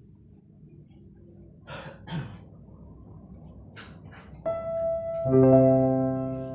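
A few light taps and clicks, then piano music that comes in about four and a half seconds in with a single note and swells into a sustained chord.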